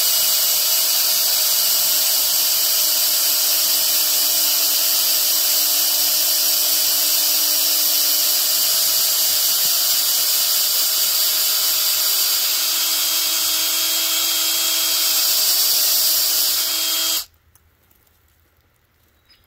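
Cordless drill running steadily as it bores a sap tap hole into a birch trunk, then stopping abruptly about seventeen seconds in.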